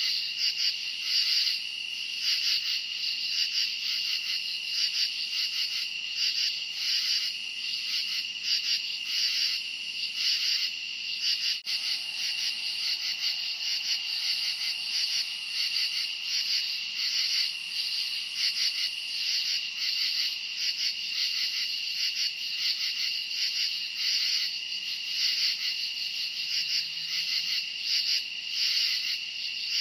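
Dense chorus of crickets chirping at night: a steady high trill with rapid pulsing chirps over it. There is a momentary dip about twelve seconds in.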